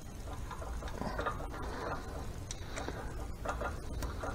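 Light metal clicks and scraping as a loosened nut is spun off a Harley 5-speed transmission shaft end by hand, with a few sharp ticks in the second half.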